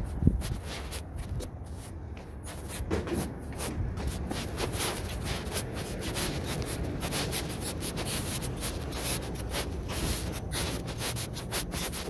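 Rubbing and scraping handling noise on a phone's microphone as it is carried by hand, irregular and continuous over a steady low rumble.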